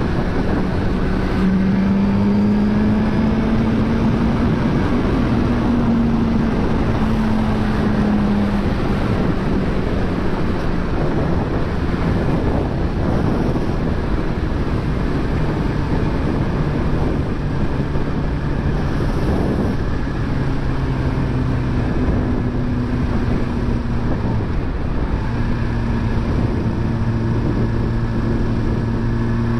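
Suzuki GSX-R1000R inline-four engine running steadily, its pitch drifting slightly, under a constant rushing noise.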